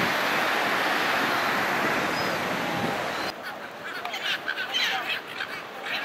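Steady wash of surf breaking on the beach. After a sudden cut about three seconds in, silver gulls give repeated short squawking calls.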